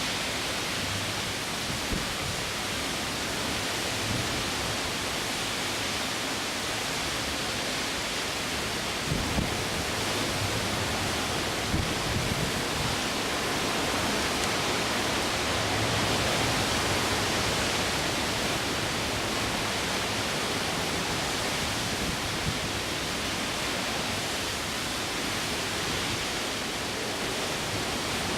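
Wind and rain of an approaching typhoon: a steady rushing noise, with a few brief low thumps of gusts hitting the microphone, about nine and twelve seconds in.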